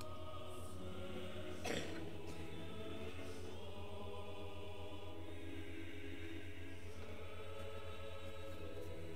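Choir singing a slow hymn, with a steady low hum beneath it and one brief knock about two seconds in.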